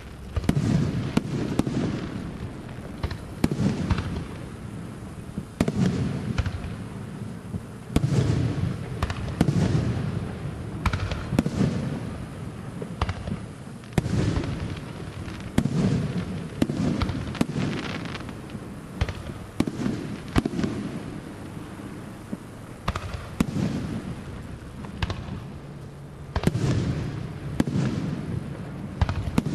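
Aerial fireworks display: shells bursting one after another, sharp bangs each trailed by a low rolling boom, several every few seconds with no pause.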